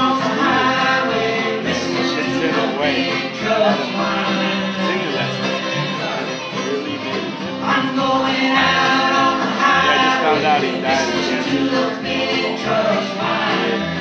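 Bluegrass band playing live, with fiddle and acoustic guitars over a steady bass line of regular low notes.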